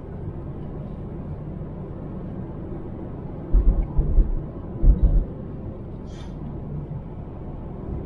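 Steady low rumble of a car's engine and tyres heard from inside the cabin while driving, with several short, deep thumps around the middle.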